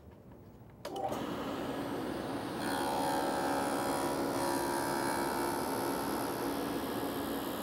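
Table saw with a dado blade switched on about a second in and running with a steady whine. A little later it gets louder as the spinning dado stack is raised up into a sacrificial MDF fence, cutting into it.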